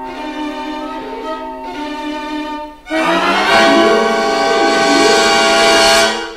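Background music with long held notes. About three seconds in it drops out briefly and comes back louder and fuller, then stops just before the end.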